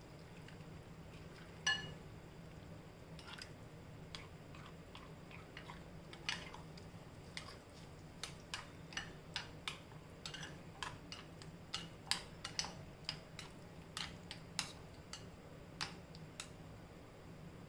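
A spatula clicking and scraping against a glass bowl while stirring semolina and buttermilk into a thick paste: irregular light clicks, one louder ringing click about two seconds in, coming more often from about six seconds in.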